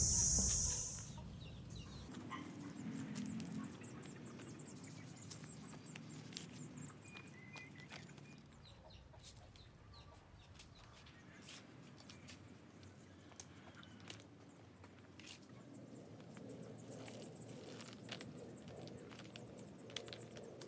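Chickens clucking softly, with a loud high-pitched hiss that cuts off suddenly about a second in. Later come faint scraping and scattered clicks as soil and stones are worked by hand.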